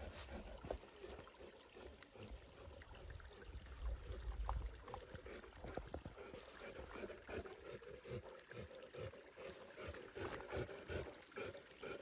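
Small rocky brook trickling steadily over stones. There are low rumbles near the start and around the middle, and scattered soft clicks in the second half.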